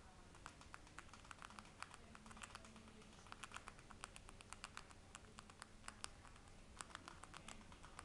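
Pet rat crunching and gnawing a hard treat: a faint, rapid, irregular run of small crunching clicks, busiest in the middle of the stretch.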